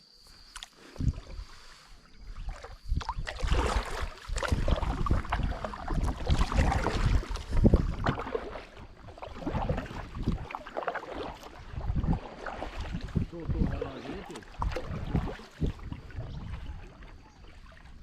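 A kayak being paddled off on a river: irregular paddle splashes and knocks of the paddle and gear against the hull, busiest a few seconds in.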